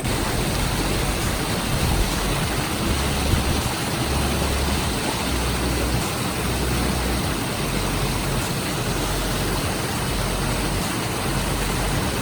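Steady rush of falling water from a waterfall on a mountain stream.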